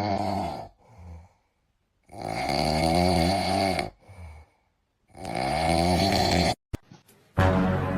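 A pet snoring, three long snores about two and a half seconds apart.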